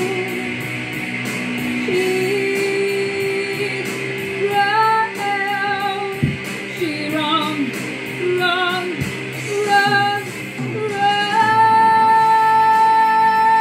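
A woman singing into a microphone over a backing track with guitar and a steady beat. Her sung notes waver with vibrato, and she holds one long high note over the last few seconds.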